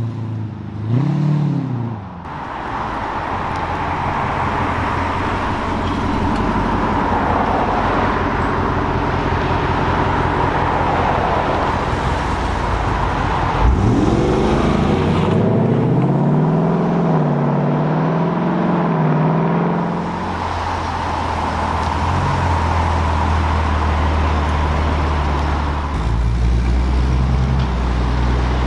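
American V8 car engines revving and pulling away, with a sharp rev about halfway through, then settling into a deep, steady idle near the end.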